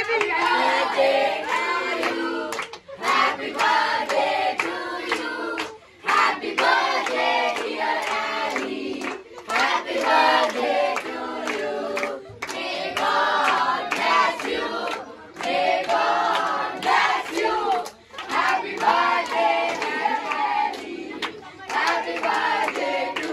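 A group of kids and teenagers singing together in unison, clapping their hands along with the song.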